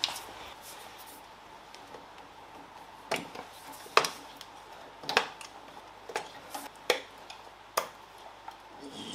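Sharp plastic clicks and snaps from the distributor cap and spark plug lead boots being worked free by hand, about six separate clicks starting about three seconds in.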